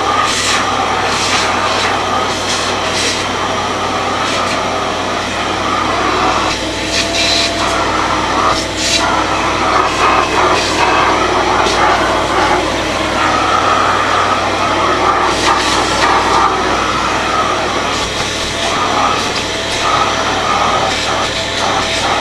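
Kärcher MV6 P Premium wet-and-dry vacuum cleaner running steadily, its suction note dipping and shifting as the nozzle moves over surfaces, with brief sharp clicks and rattles as debris is drawn up.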